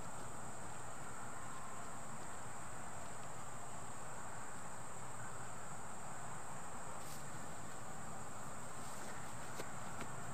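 Insects, crickets, trilling steadily in one continuous high-pitched band over a soft, even hiss.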